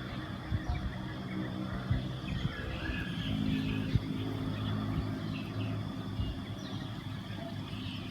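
Outdoor ambience of a vehicle engine running with a steady low hum, a little louder midway, while small birds chirp here and there.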